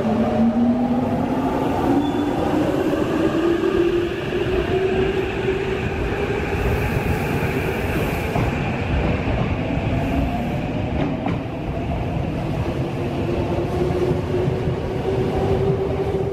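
Electric commuter train running on the line, its motors whining with a pitch that rises over the first couple of seconds and then holds steady, over a continuous rumble of wheels on rails.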